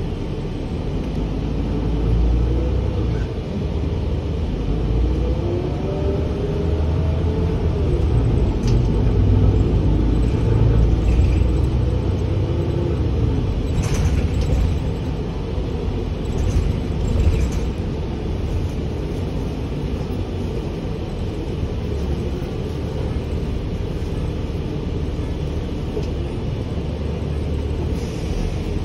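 Cabin of a Gillig Advantage transit bus under way: a steady engine and road rumble, with a whine that rises and falls in pitch over the first dozen seconds as the bus changes speed. There is one sharp rattle or click about halfway through.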